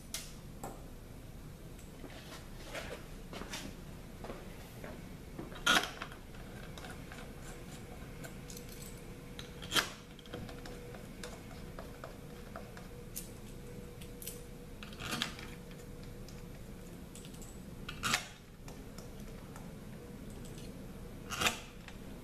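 Bolts clinking as they are taken from a handful and set into the bolt holes of a ZF 5HP24 transmission valve body. About five sharp metallic clicks come a few seconds apart, with quieter handling rattles between, over a faint steady hum.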